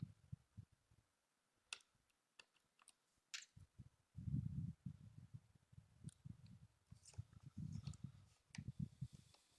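Faint clicks and dull handling bumps from jumper wires and resistors being plugged in to connect a 4x4 keypad to an Arduino, with a few sharp clicks standing out.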